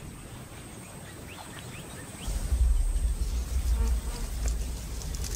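Faint insect buzzing in the bush with a few short chirps. About two seconds in, a deep low rumble starts and continues, louder than the rest.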